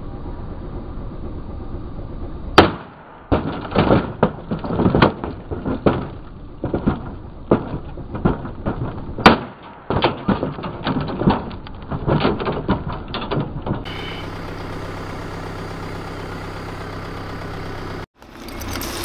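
Axe blows on an ASUS gaming monitor: a sharp strike about two and a half seconds in, then a run of hits with crunching and cracking of the screen panel, and another hard strike about nine seconds in. For the last few seconds a steady low hum takes over.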